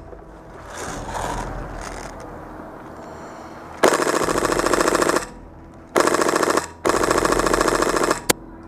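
Airsoft rifle firing on full auto in three bursts of rapid shots: the first about a second and a half long, then two shorter bursts close together. A single shot follows.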